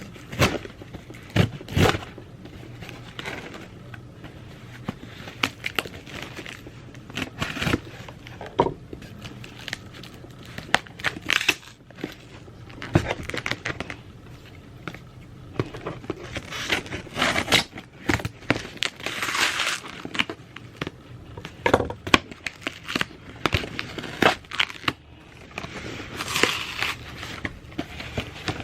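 A box being opened by hand: packaging crinkling and tearing, with many sharp taps and knocks of handling, and longer rustling stretches in the second half.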